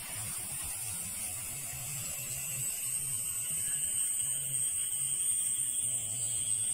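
Lit firework fuse burning with a steady hiss.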